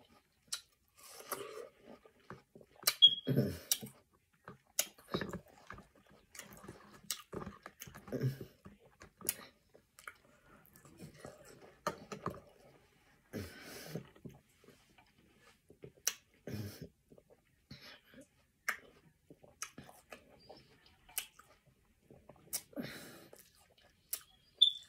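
Close-up wet chewing of juicy watermelon: irregular mouth clicks, lip smacks and short squishy bites, unevenly spaced.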